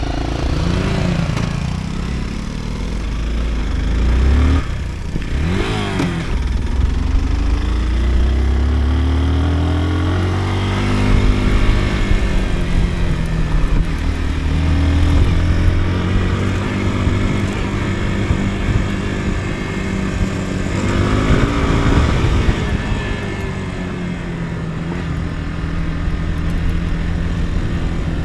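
Motorcycle engine running while riding, its pitch climbing and dropping several times with throttle changes and gear shifts.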